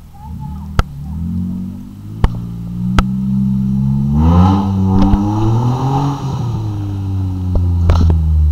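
Jeep Wrangler engine running in low gear as it crawls down a steep rutted dirt trail, revving up about halfway through and easing back off. A few sharp knocks come through now and then.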